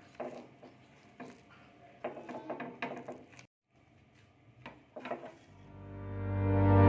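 Scattered light clinks and knocks of kitchen utensils and dishes being handled. The sound drops out completely for about a second just past halfway, then background music fades in near the end.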